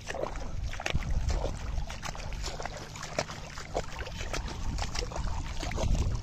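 Feet wading through shallow water in a flooded rice paddy, with irregular splashes and sloshes several times a second, over a low rumble of wind on the microphone.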